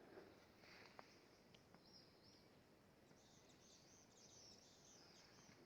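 Near silence, with faint high-pitched bird chirping that grows busier from about three seconds in, and a few faint ticks early on.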